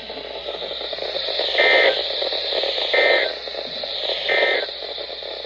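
Weather radio static with three short, high-pitched digital data bursts about a second apart: the Emergency Alert System end-of-message code that closes the warning broadcast.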